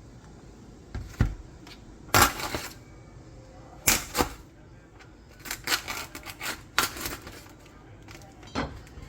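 Kitchen handling sounds: a string of irregular knocks and clatters, as of dishes, containers or utensils being picked up and set down, with a quick cluster of them about six seconds in.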